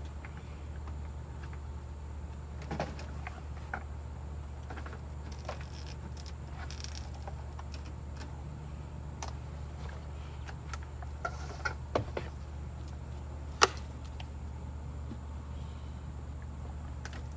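Scattered light clicks and knocks of a Stihl FS 110 four-stroke string trimmer being handled and readied to start, with one sharp click late on, over a steady low hum; the engine is not yet running.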